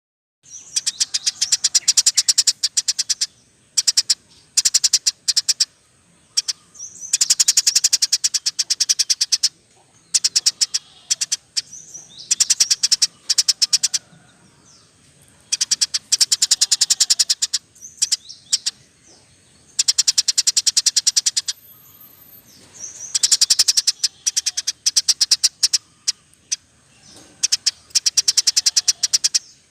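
Bird-song training recording of a canary, lovebird and sparrow mix: rapid, high chattering chirps in bursts of one to three seconds with short gaps, starting about half a second in after a silent pause.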